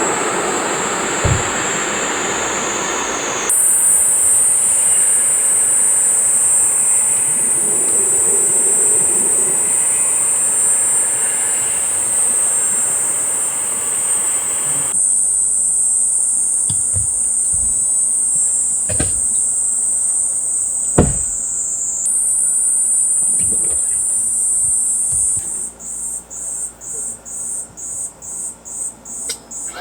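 Cicadas singing in a loud, steady high buzz; near the end the song turns to a pulsing call, about five pulses every two seconds. A few short knocks sound underneath.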